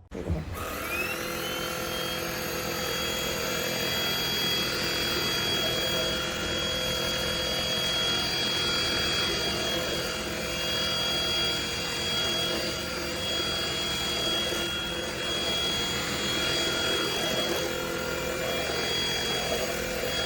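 Cordless stick vacuum cleaner switched on, its motor whining up to speed in about a second, then running steadily with a high whine over a rush of air.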